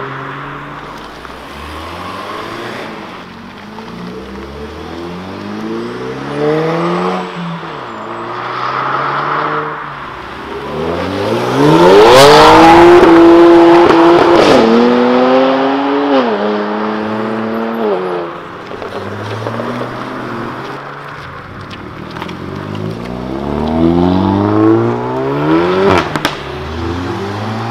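Several tuned cars accelerating hard away in turn, each engine's pitch climbing and then dropping at every gear change. The loudest run starts about twelve seconds in, and a few sharp pops cut through.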